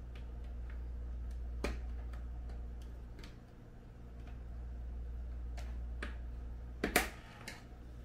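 Scattered light clicks and taps as the edge of a Snoo bassinet's mesh liner is pressed by hand into the plastic rim, the loudest a short cluster about seven seconds in. A steady low hum runs underneath.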